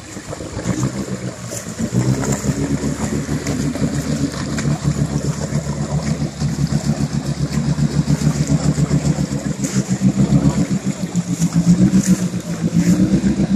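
Nissan Patrol GQ 4WD engine working under load while driving through a deep muddy bog hole. It gets louder about two seconds in, and the revs rise again near the end.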